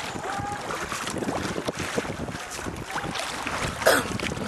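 Wooden paddle strokes splashing and churning river water beside a small round bamboo boat, with wind on the microphone; the loudest splash comes near the end.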